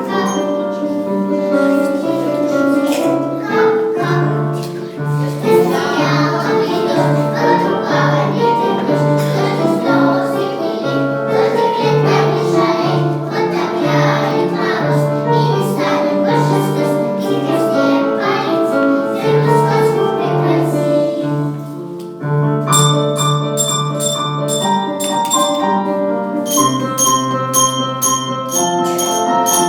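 A group of young children singing a song together over an instrumental accompaniment with a steady, repeating bass line. About 22 seconds in, the singing stops and an instrumental interlude of bell-like chiming tones takes over.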